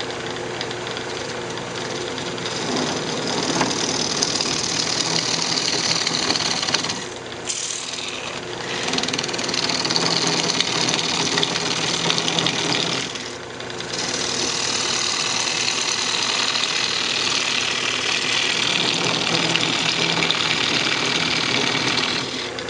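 Wood lathe running while a turning gouge cuts a spinning maple blank, a steady cutting noise over the machine's hum as the diameter is taken down. The cut eases off briefly about seven and thirteen seconds in, then resumes.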